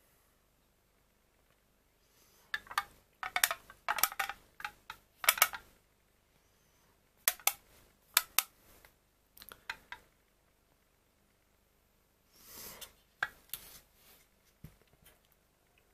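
Thin plastic pudding cups with foil lids handled and turned over in the hands: several bunches of sharp clicks and crackles, with quiet gaps between.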